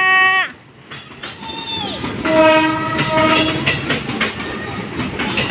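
A passing train's horn sounds twice: one blast cuts off with a falling pitch about half a second in, and another follows about two seconds in for a second and a half. After it the train's wheels clatter in an even rhythm over the rail joints.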